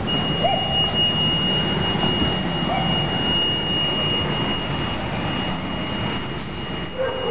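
Spartan Gladiator fire engine idling, a steady diesel rumble with a thin, steady high whine over it and a second, higher whine joining about halfway.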